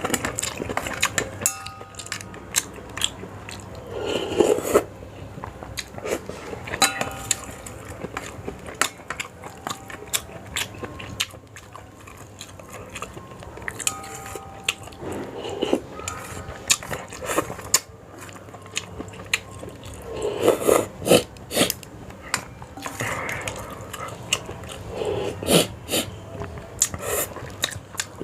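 Close-up eating of a bowl of Sarawak laksa: chewing and biting with many small sharp clicks, and a few louder noisy spells of a second or so.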